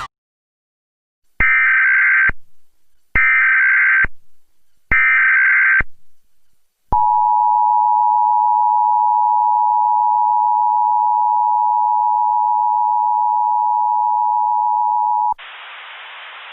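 Emergency Alert System SAME header: three short bursts of data tones about a second each, then the EAS two-tone attention signal held for about eight seconds, then a steady hiss near the end.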